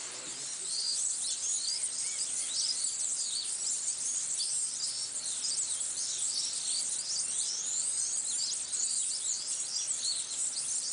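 Many small birds calling at once: a dense, unbroken chorus of short, high-pitched chirps and twitters overlapping one another.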